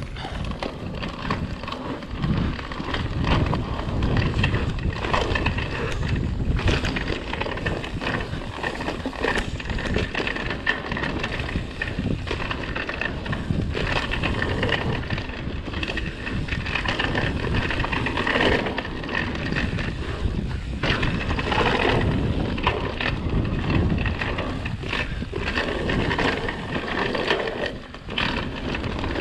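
Mountain bike rolling fast over a dirt singletrack: tyres on dirt, the bike rattling over bumps, and wind buffeting the microphone.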